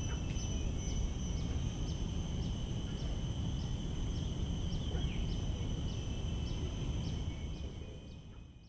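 Tropical garden ambience: insects trill in a steady high whine over a low, even rumble, while a short high chirp repeats about twice a second. A falling call sounds once midway, and everything fades out near the end.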